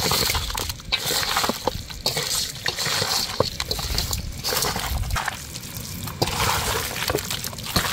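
A bare hand kneading chicken pieces through a wet marinade of curd, chopped onion, tomato and ground spices in a metal bowl: continuous irregular squelching and sloshing.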